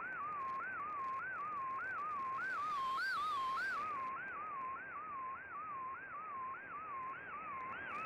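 Shortwave digital picture transmission (Fldigi MFSK image mode) heard through the receiver's speaker: a single tone over hiss that swoops up and back down about twice a second as the image data comes in.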